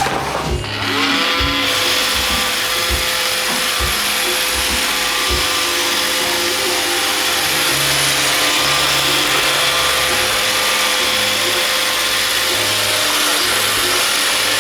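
iRobot Roomba 530 robot vacuum running a cleaning cycle: its vacuum motor and brushes spin up about half a second in, rising to a steady whine over a constant whirr.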